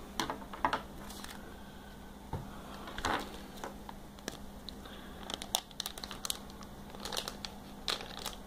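Plastic blind-bag packet crinkling and rustling in the hands as it is opened, in scattered short crackles with a few louder rustles.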